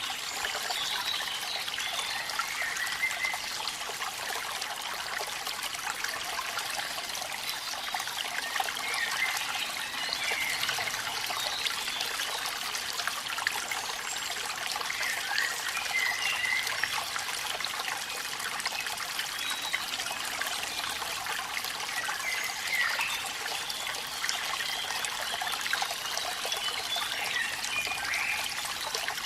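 Steady running water, a trickling stream or waterfall.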